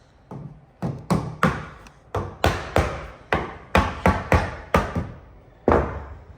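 A timber piece being tapped down into a stopped housing joint: about fourteen sharp wooden knocks at an uneven pace, several close together in the middle, with a last one near the end.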